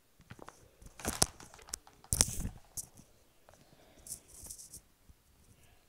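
Short rustles and clicks of handling and clothing movement close to the microphone, with two louder rustling bursts about one and two seconds in.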